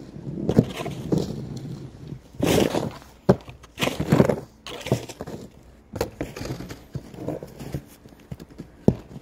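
Wide plastic snow pusher on a wooden handle scraping and shoving snow in a string of irregular strokes, with boots crunching in the snow close by.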